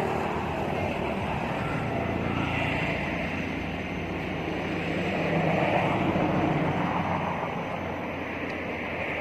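Steady drone of a motor vehicle's engine, swelling louder about five seconds in and easing off again.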